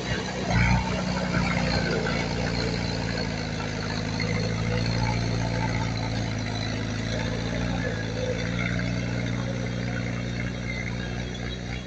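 Diesel engine of heavy earthmoving machinery running steadily at a low, even pitch, with a brief louder moment just under a second in.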